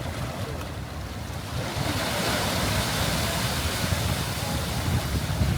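Ocean surf rushing and surging over rocks and into a tidal sinkhole, with the wash swelling about two seconds in. Wind buffets the microphone with a low rumble.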